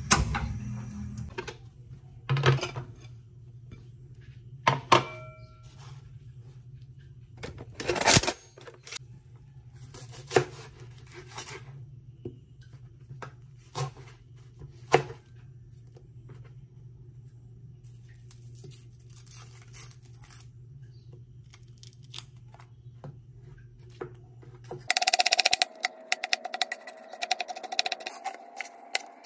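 Kitchen knife cutting a red onion on a plastic cutting board: scattered knocks and taps of the blade against the board over a steady low hum. Near the end the hum stops and a denser run of quick taps with a steady tone beneath them comes in.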